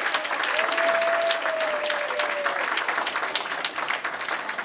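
Audience applauding at the end of a sung number, the clapping thinning out toward the end. About half a second in, one long held high note sounds over the clapping for about two seconds.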